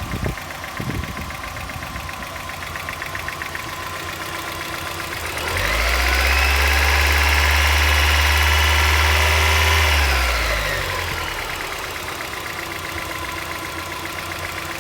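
1990 Mazda Miata's 1.6-litre four-cylinder engine idling, revved up about five and a half seconds in, held there for about four seconds, then dropping back to idle. A fast ticking runs through the idle, which the owner suspects is lifter tick.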